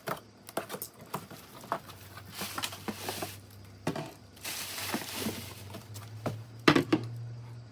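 Packaging of a large laundry detergent being handled: a run of clicks and knocks with two stretches of rustling, and a pair of louder knocks near the end.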